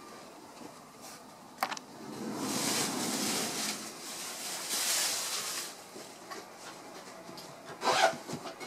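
Rubbing and rustling noise in two long swells, with a single sharp click shortly before the first and a brief louder burst near the end.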